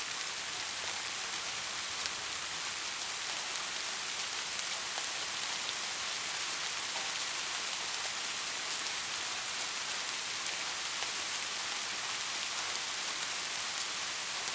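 Steady white-noise hiss, strongest in the upper range and unchanging in level, with faint scattered ticks, much like steady rain.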